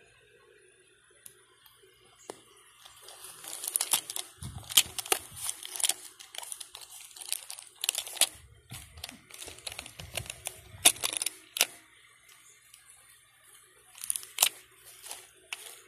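Tissue paper crinkling and clear plastic coin capsules clicking against one another as coins are handled in a plastic tub. It starts about three seconds in and comes in irregular spells of sharp rustles and clicks.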